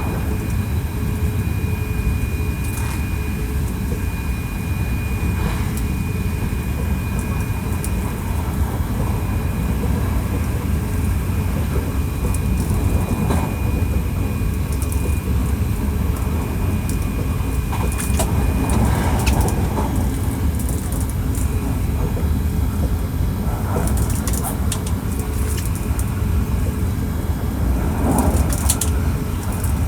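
Hankyu 1300 series electric train running at speed, heard from inside the car: a steady low rumble of wheels on rail with scattered clicks and knocks. A thin, steady high whine runs over it and stops about two-thirds of the way through.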